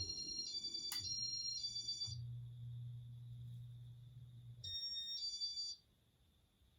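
Casablanca Inteli-Touch fan control sounding short electronic beep chords, a quick run of four steps at the start and a pair about five seconds in, as settings are changed. Under the first run the fan's low motor hum drops out for a moment, picks up again, and stops just before the second pair of beeps.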